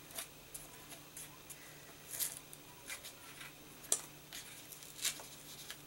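Paper and cardstock being handled and shifted on a cutting mat: scattered short rustles and light ticks, the most distinct about two, four and five seconds in.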